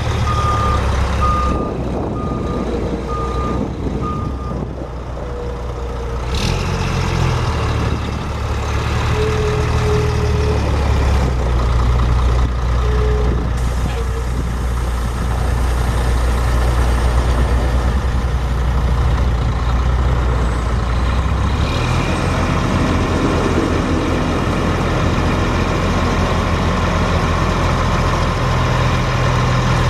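Caterpillar 10.3-litre inline-six turbo diesel of a Sterling L9511 dump truck running. A high beep repeats about every 0.7 seconds and stops about four seconds in. The engine note steps up about six seconds in and settles back to idle about 22 seconds in.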